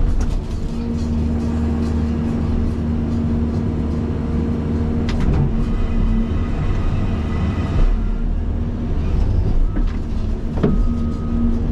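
Caterpillar 336 excavator's diesel engine and hydraulics working steadily, heard from the operator's cab, with a steady low tone that drops out and returns. There is a knock about five seconds in and another near the end.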